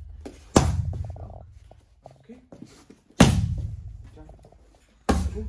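Three hard strikes landing on Thai pads, about half a second in, about three seconds in and near the end: each a sharp smack followed by a long fading boom of the room's echo.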